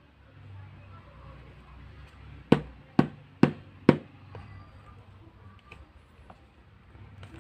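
Four sharp taps on a Beyblade booster's cardboard box, about two a second, over faint rustling of the box being handled.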